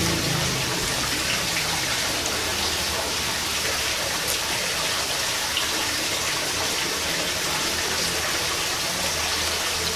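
Steady hiss of heavy rain, with a few small clicks from eating mussels.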